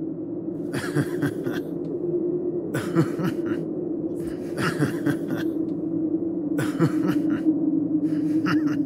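Ominous cartoon sound effect: a steady low drone with a rasping, growl-like burst about every two seconds, five in all.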